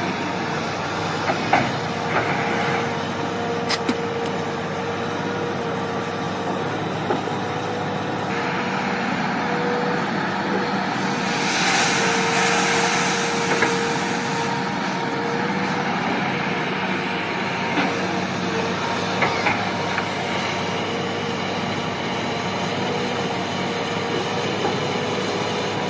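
Heavy machinery running steadily, with a steady hum, a few sharp clicks and knocks, and a hiss of escaping air from about a third of the way in to past the middle.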